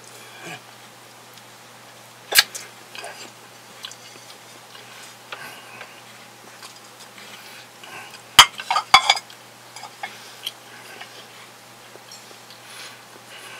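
Crockery and cutlery clinking: one sharp clink a little over two seconds in, then a quick cluster of ringing clinks about eight seconds in, from a small china plate and a teaspoon against a glass tea mug.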